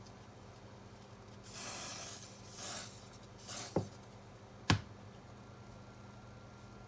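Spray paint hissing in three short bursts, followed by two sharp clicks.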